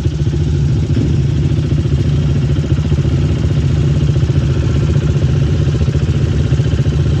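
ATV engine running at a steady speed, a low, even engine pulse throughout.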